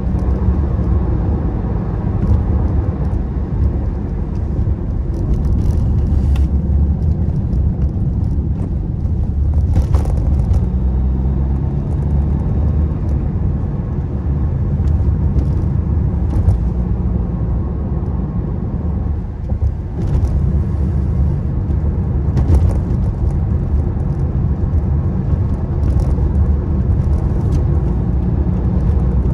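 Steady low rumble of tyre, road and engine noise inside a car's cabin while driving at speed, with a few light ticks here and there.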